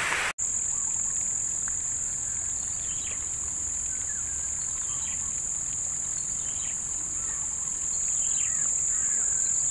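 Steady high-pitched drone of an insect chorus, with short bird chirps here and there.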